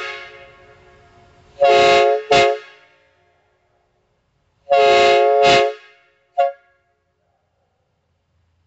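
Replica four-trumpet train air horn sounding a chord in short blasts. The tail of one blast fades at the start, then comes a blast with a quick second toot about two seconds in, a longer blast around five seconds in and a brief toot soon after.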